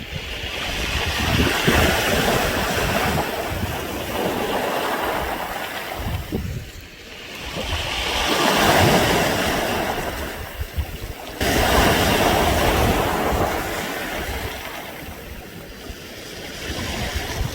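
Waves washing up and drawing back over a beach of smooth round pebbles, the surf and the rolling pebbles making a rising and falling rattling hiss. The surges come about two seconds in, again around nine seconds, and one starts suddenly at about eleven and a half seconds. Wind rumbles on the microphone.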